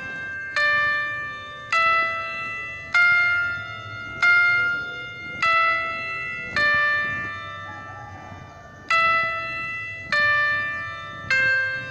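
Background music: a slow melody of bell-like notes, one struck about every second and a bit, each ringing and fading before the next, with one longer held note midway.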